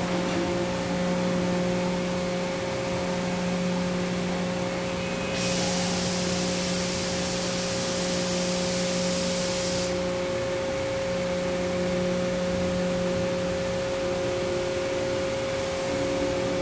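Steady hum and whine of a running injection molding press and its pick-and-place robot dry cycling. About five seconds in, a loud hiss of compressed air from the pneumatic gripper and flip system starts, and it cuts off suddenly about four and a half seconds later.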